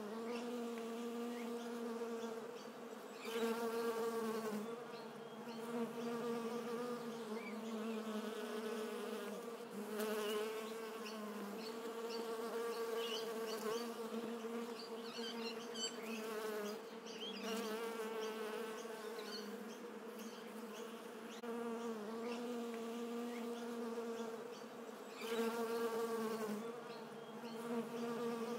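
Bee buzzing: a steady hum that swells louder every seven seconds or so.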